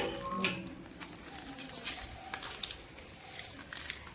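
Street dogs eating biscuits, with scattered small crunches and clicks and light rustling.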